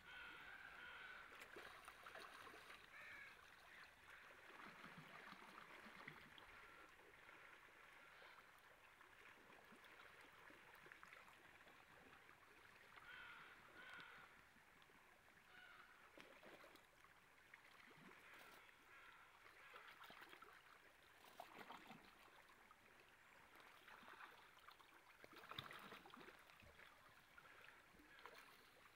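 Faint stream water running, with a few short bird calls now and then.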